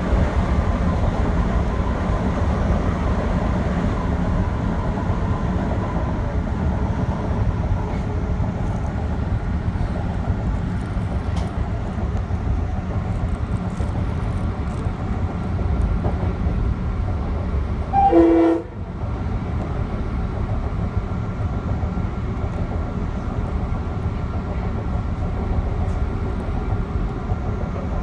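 Metro-North commuter train running with a steady low rumble from the rails, and one short horn toot about two-thirds of the way through.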